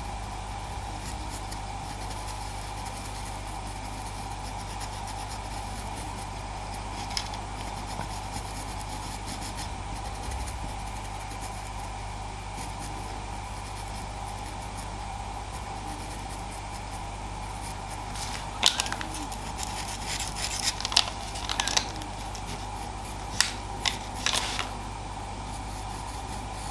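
Pastel pencil on Pastelmat paper: faint scratchy strokes over a steady background hum, with a run of short, sharp scratches and taps in the last third as the pencil darkens the pupil edges.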